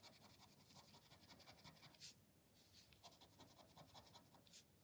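Faint scratching of a lottery scratch card's panel, in rapid short strokes, with a couple of sharper scrapes about two seconds in and near the end.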